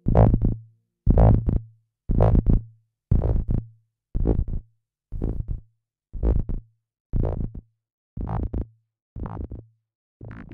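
Synthesizer music ending on a short, stuttering hit with a low thump, repeated about once a second and growing steadily quieter as the track fades out.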